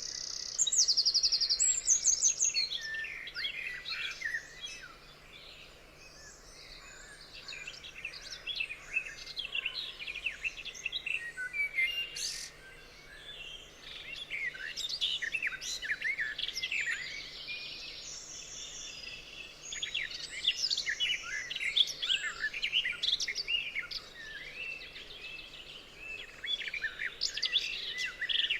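Many forest birds singing and chirping at once: a dense, overlapping chorus of short calls and trills that thins out twice for a couple of seconds.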